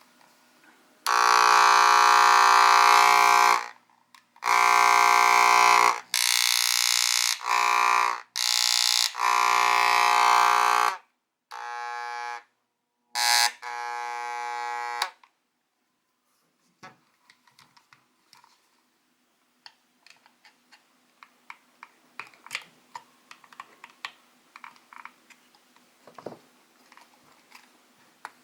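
An Aoyama electric massager buzzing loudly in a string of on-off bursts that change in tone from one burst to the next, for about fourteen seconds. Then it stops, and only faint scattered clicks and taps follow.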